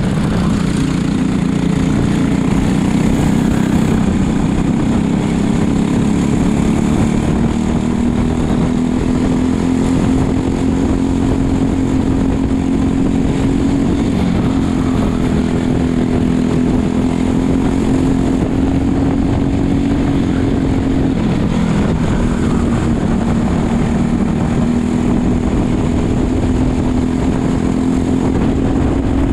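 Racing kart engine running hard at speed, heard from the driver's seat: a steady drone whose pitch rises and dips a little through the corners, over a rush of noise.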